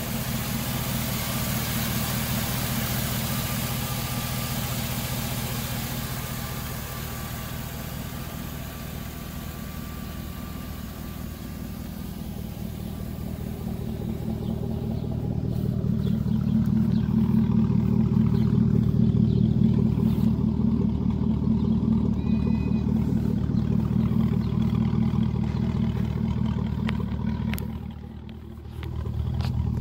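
Chevrolet 4.8-litre LS V8 idling steadily, its exhaust running through a catalytic converter on each side into a single pipe with no muffler. The exhaust note grows louder and deeper from about halfway through, with a brief dip near the end.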